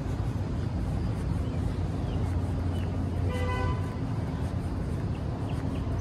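Outdoor ambience: a steady low rumble with a single short honk a little over three seconds in, and a few faint chirps.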